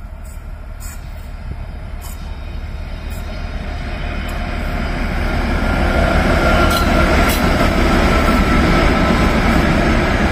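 Several diesel locomotives coupled together and led by an S200 (ChME3) shunter, running past on the track with a deep engine drone and the rumble of wheels on rail. The sound grows louder over the first six seconds as they approach, then holds steady as they pass close by.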